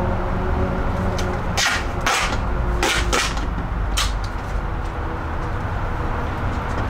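A few sharp clicks and knocks of metal bike parts being handled at a mountain bike's handlebars and front end, bunched between about one and a half and four seconds in, over a steady low background rumble.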